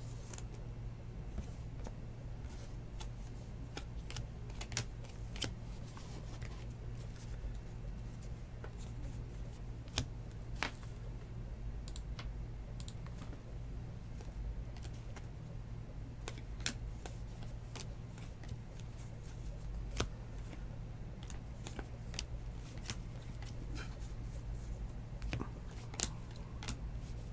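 Trading cards being handled and flipped through one by one: scattered light clicks and slides of card stock at irregular moments, over a steady low hum.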